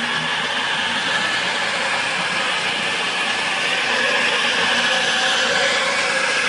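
Class 221 Super Voyager diesel-electric train passing slowly: a steady mix of its underfloor diesel engines and wheels running on the rails, growing slightly louder as the end car goes by.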